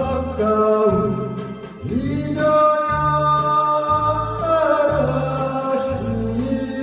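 A song performance: singing with long held notes over instrumental accompaniment with a steady bass beat.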